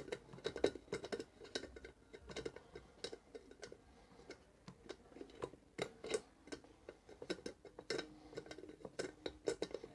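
Pliers working a small nut loose on an electric kettle's base: irregular light metallic clicks and ticks of the pliers' jaws on the nut and metal.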